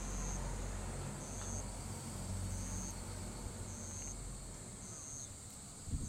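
An insect chirping in a slow, even rhythm: a short high note about every 1.2 seconds, six in all. Under it runs a low steady rumble that fades in the second half.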